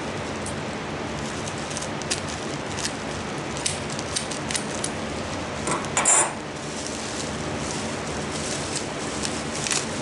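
Light clicks and taps of hatching eggs and their packing being handled and set down, over a steady hiss, with a louder clatter about six seconds in.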